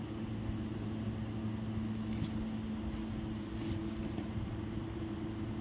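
Steady low electric hum of a running appliance motor, with a few faint light clinks and jingles between about two and four seconds in.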